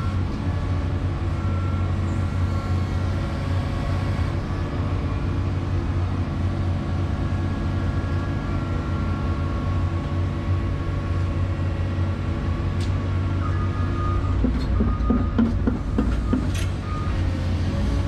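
Excavator engine running steadily under digging load, heard from inside the cab, with the hydraulics working the boom and bucket. A few sharp knocks come about three-quarters of the way through.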